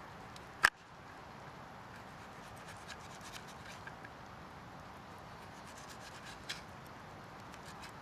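Pocket knife cutting the rind off a slab of bacon on a plastic cutting board: soft scraping and rubbing of the blade, with a sharp click less than a second in and a smaller one past the six-second mark.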